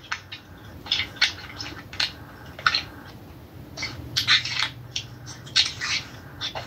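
A quick, irregular series of short rustling and crackling noises, with a faint low hum beneath.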